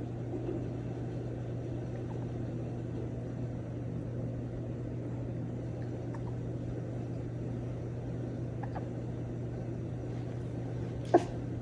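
A steady low hum, with a couple of faint small clicks and one sharp, short sound near the end.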